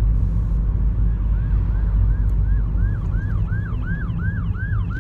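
Ambulance siren sounding a rising-and-falling wail about three times a second. It starts about a second in and grows louder as it approaches, heard from inside a car over the steady rumble of the car's engine and road noise.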